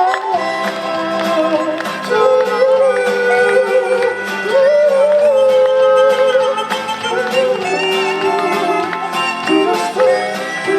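Live band music from a street performance: the closing bars of a Korean ballad, a held melody line moving over steady accompaniment.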